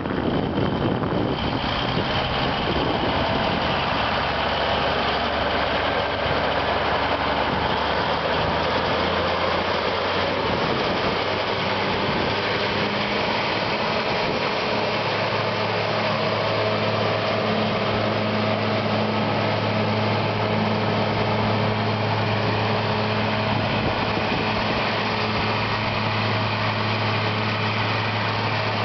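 Versatile 835 four-wheel-drive tractor's diesel engine running steadily as the tractor drives slowly around. About halfway through, the engine note settles into a stronger, steady low drone.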